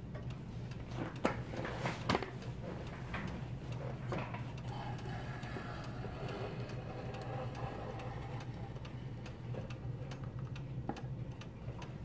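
New Haven chime clock movement ticking steadily as it runs, with two sharper knocks about one and two seconds in. A faint ringing tone rises and fades away in the middle.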